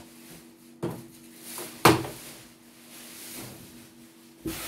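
Plastic embroidery hoop being fitted onto the carriage arm of a CNY E900 embroidery machine: a few knocks and clicks, the sharpest about two seconds in and another near the end, over a faint steady hum.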